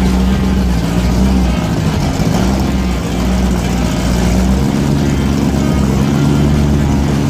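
502 big block Chevy V8 in a Malibu race car running steadily, its pitch shifting slightly about four and a half seconds in.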